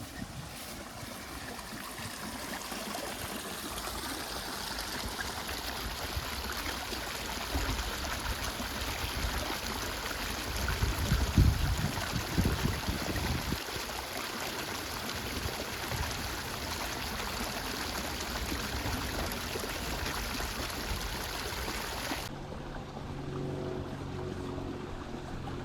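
Water running into a reservoir at its inflow, a steady rushing, with a louder low rumble about halfway through. Near the end the water sound cuts off suddenly and a quieter steady low hum with a few held tones takes over.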